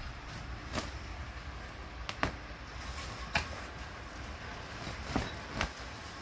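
Small dog's paws and claws tapping and scratching on a smooth plastic mat as it plays: about six sharp clicks spread out over a low steady hum.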